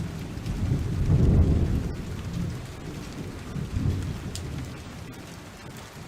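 Thunderstorm: low rolling rumbles of thunder over a steady hiss of rain, the loudest rumble about a second in and another near four seconds, then dying away.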